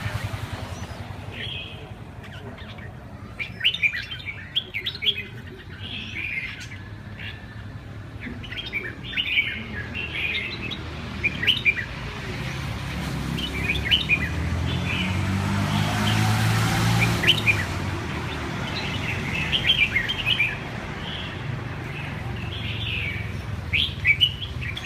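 Caged red-whiskered bulbuls singing in short, repeated chirping phrases, one after another. A low rumble swells in the middle.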